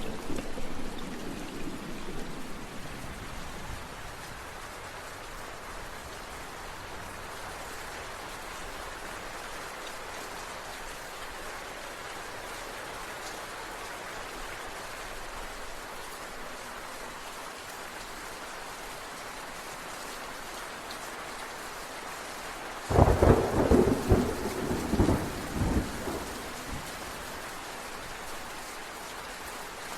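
Steady rain falling, with thunder: a rumble fading away over the first few seconds, then a sudden loud thunderclap about three-quarters of the way through that rumbles on in several surges for about three seconds.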